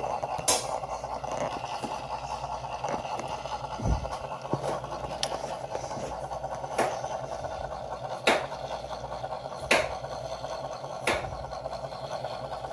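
A steady mechanical hum with a series of sharp clicks, which fall about every second and a half in the second half.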